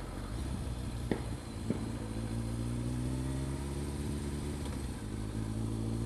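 Kawasaki ZRX1200R inline-four motorcycle engine running at low road speed, its pitch climbing gently from about two seconds in as the bike picks up speed. Two short sharp cracks sound just after a second in, about half a second apart.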